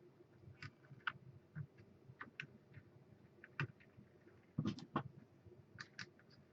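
Faint, scattered small clicks and taps of plastic washers being dropped onto the water block's mounting posts, with a slightly louder cluster of knocks about four and a half seconds in.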